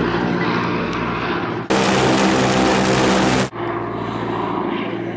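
A Ford Tri-Motor's three nine-cylinder Pratt & Whitney radial engines and propellers drone steadily as it flies past. In the middle a louder, hissier stretch of about two seconds starts and stops abruptly. The drone then fades a little.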